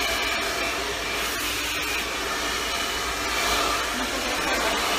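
Hand-held hair dryer running steadily, blowing air onto hair as it is styled over a round brush.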